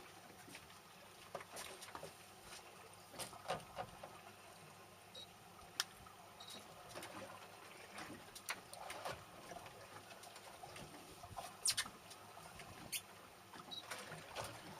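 Scattered light clicks and taps at irregular intervals over a faint hiss, with small trickling and lapping water sounds around a small fishing boat.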